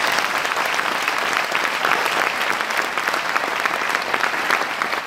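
Audience applauding: many hands clapping in a steady, dense patter at the end of a song.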